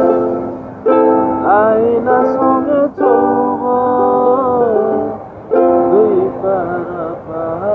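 A man singing a Bengali song to his own ukulele accompaniment, in phrases broken by two short pauses.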